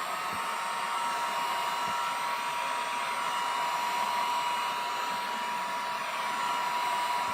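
Electric heat gun running steadily: a whine over a rush of blowing air, used to soften the adhesive holding a tablet's touchscreen glass.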